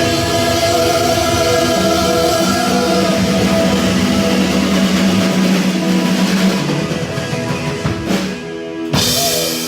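Live rock band with drum kit, electric guitar and bass holding a loud chord under busy drumming, which dies away near the end. A sudden burst of noise comes just before the end.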